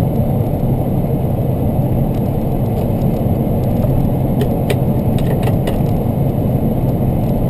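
Steady engine drone and road noise inside a semi-truck cab while cruising on the highway, with a few faint ticks near the middle.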